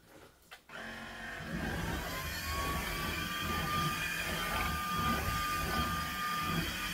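Cordless stick vacuum switched on after a few clicks: its motor whine rises over about a second, then holds a steady high whine over the rush of suction.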